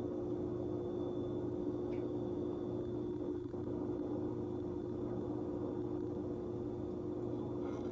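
Steady low mechanical hum with a constant tone, with faint ticks about two seconds in and near the end.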